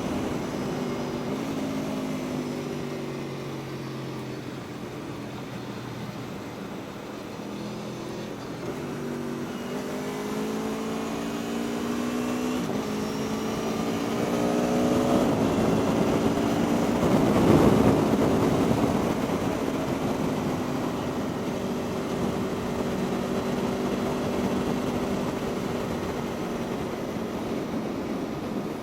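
Aprilia Tuono V4 1100's V4 engine on the move, its note easing off at first, then climbing in steps through several upshifts, under a constant rush of wind. About two-thirds of the way through, a louder rush of noise swells and fades.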